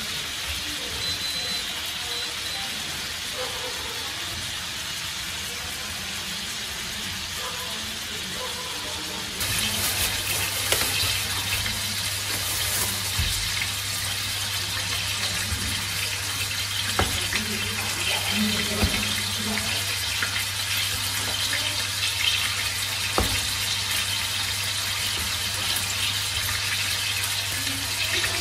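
Fish steaks sizzling in oil in a frying pan, a steady hiss. About nine seconds in, it changes abruptly to a louder steady hiss with a low hum, broken now and then by single sharp knocks of a cleaver on a wooden chopping board as tomatoes are cut.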